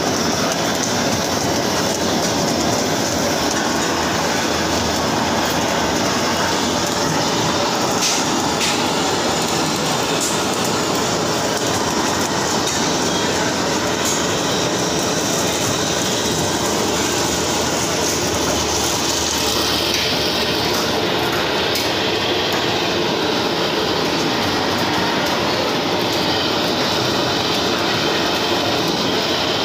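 Gas blowtorch fed from a cylinder, burning with a steady rushing hiss as its flame singes a plucked chicken.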